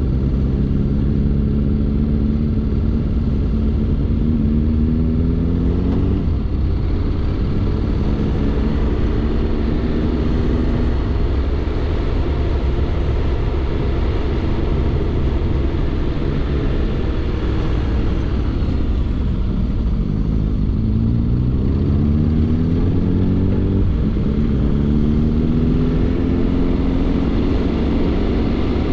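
Motorcycle engine, the Honda X-ADV 750's parallel twin, pulling through the gears. Its pitch climbs and then drops back at each upshift, three times, over steady wind and road rumble.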